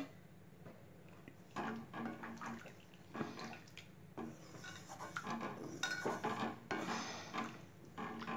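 Water being added to a pot of kulambu, with clinks and knocks of metal vessels and a ladle at irregular intervals.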